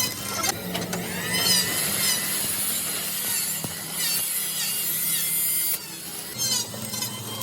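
A tool scraping on steel in repeated strokes, with squealing sweeps in pitch, over a steady low hum.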